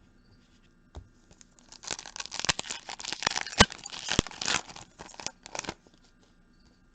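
A foil trading card pack wrapper being torn open and crinkled, with a dense crackle lasting about four seconds and a few sharp snaps in the middle.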